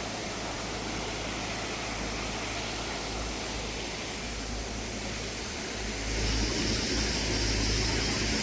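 Mountain stream water rushing over rocks, a steady even hiss with a low rumble underneath, growing louder and brighter about six seconds in.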